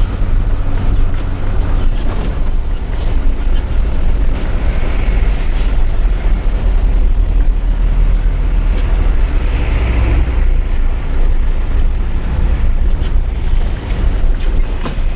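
Isuzu Giga truck's diesel engine running under way, heard from inside the cab: a steady, deep drone with scattered small clicks.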